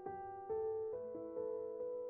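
Slow, sad solo piano background music, a new note or chord struck roughly every half second over sustained tones.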